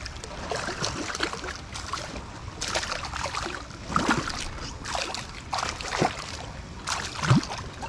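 Water splashing and sloshing in a string of short bursts, about one a second, as a hooked small striped bass is fought to the surface and brought in.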